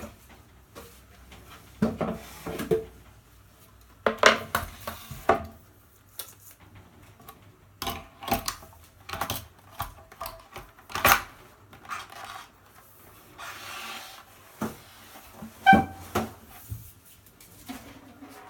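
Mercedes K45 portable manual typewriter being handled: uneven metallic knocks and clunks, some with a short ring, a brief scraping rub past the middle, and a short ringing note near the end.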